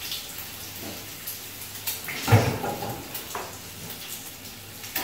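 Steady sizzling hiss of food frying in pans on a gas stove, with a few short metallic knocks and clinks as a pot lid is lifted and handled; the loudest knock comes about halfway through.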